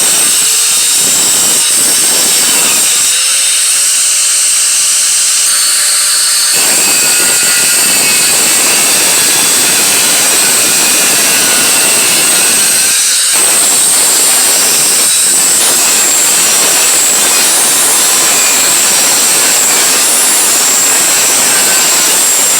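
Power tool cutting through sheet metal, running continuously with a steady high-pitched whine and harsh grinding noise. For a few seconds near the start the lower grinding noise drops away, then the cut resumes at full load.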